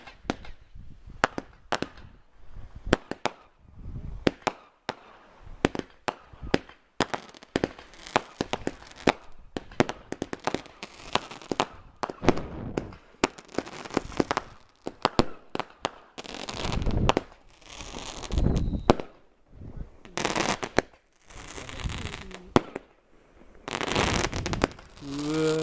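Category 2 consumer fireworks going off: a rapid string of sharp bangs and pops as shots launch and burst, then, from about two-thirds of the way in, several longer stretches of continuous noise as star bursts break overhead.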